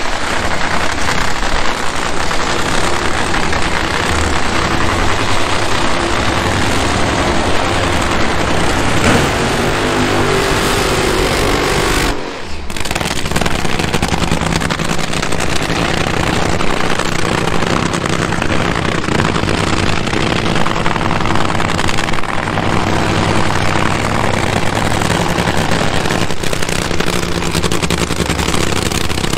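Supercharged nitromethane-burning drag-racing V8 running loud and steadily, with a brief drop in level about twelve seconds in.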